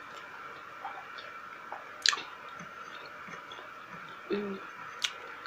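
A person chewing pork ribs and rice with her mouth closed, with sharp wet mouth clicks and smacks, the loudest about two seconds in and another about five seconds in. A short hummed sound comes a little after four seconds.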